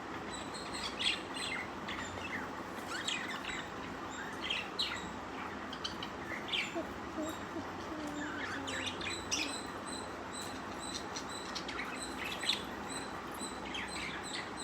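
Budgerigars chirping: many short, quick chirps and twitters scattered irregularly throughout, over a steady low hiss.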